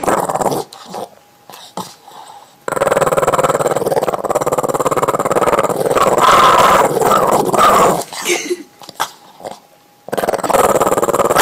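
Small flat-faced dog growling in long, drawn-out rumbles, the longest lasting about five seconds, with a short one at the start and another near the end.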